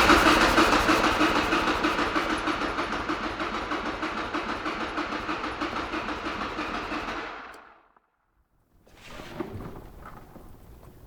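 Buell X1's 1203 cc V-twin being cranked by its electric starter without firing, a rhythmic chugging of a few compression strokes a second that slowly fades and stops about seven and a half seconds in. It will not catch because the fuel pump has failed. Faint clicks follow.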